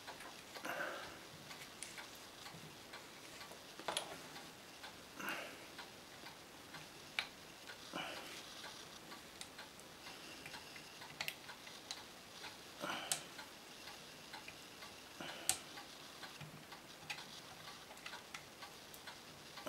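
Stainless steel Ruger Old Army revolver being worked by hand during reassembly: faint, irregularly spaced light metal clicks and short scrapes as its parts are fitted.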